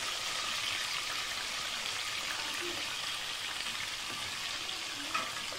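Boiled onion sizzling in smoking-hot oil in a pot, a steady crackling hiss; the fat is hot enough to spit.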